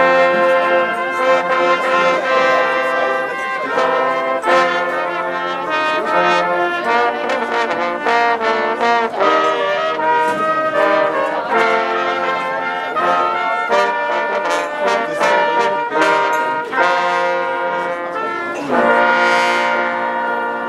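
Brass band playing a tune with trombones and trumpets, ending on a louder sustained chord.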